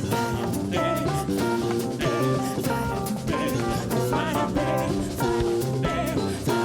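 Band music with a drum kit keeping a steady beat under pitched melody instruments.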